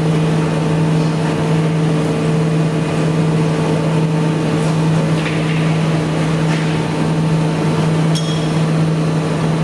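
Steady machine hum, unchanging in pitch and level, with a couple of short metallic clinks about eight seconds in.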